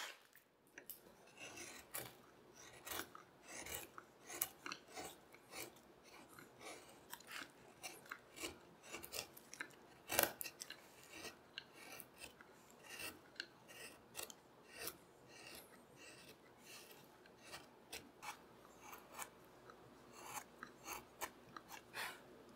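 Small carving knife paring shavings from a walnut seat: a run of short scraping cuts, about two a second, with one louder cut near the middle.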